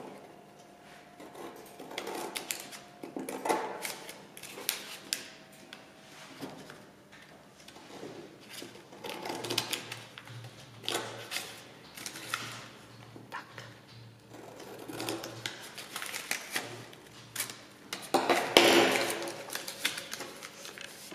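Scissors snipping slits into a folded paper square: a scattered series of short crisp cuts and blade clicks, with paper rustling. Near the end there is a louder rustle as the paper is folded and creased by hand.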